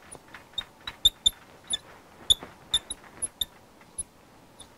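Marker pen writing on a glass lightboard: a string of short, high squeaks and taps at an irregular pace as the letters are drawn.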